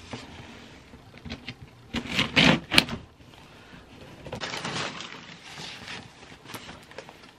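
Cardboard shipping box being opened and unpacked by hand: a loud cluster of sharp cardboard noises about two to three seconds in, then softer rustling as the contents are pulled out.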